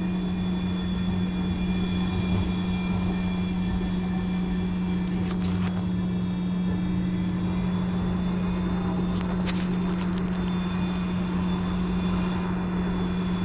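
Steady hum and rumble inside a streetcar's passenger cabin, with a constant low drone throughout. A few brief clicks and knocks stand out, the sharpest about nine and a half seconds in.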